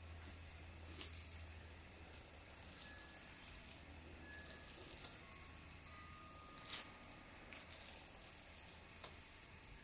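Faint, sparse crackling of cling film as fingertips press and twist it over wet paint on cardstock, with a few small clicks here and there.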